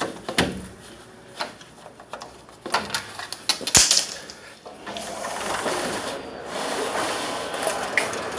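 A sliding screen door or window rattling and clicking in its track as it is slid open, with a sharp knock just under four seconds in. After that a steady rush of outdoor background noise takes over.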